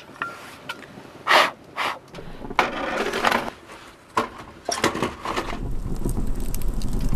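Split firewood and a metal waffle iron knocking and scraping as they are pushed into a wood stove's firebox: a handful of short, sharp clatters. About five seconds in, a steady low rumble of the wood fire burning in the stove takes over.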